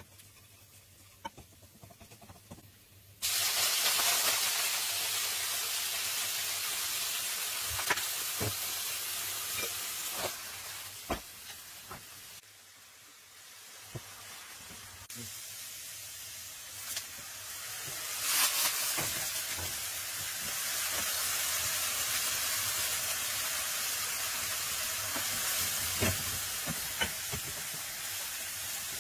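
Sliced artichokes frying in olive oil in a nonstick wok. A steady sizzle starts suddenly about three seconds in, as they go into the hot oil. A wooden fork stirring them knocks against the pan now and then.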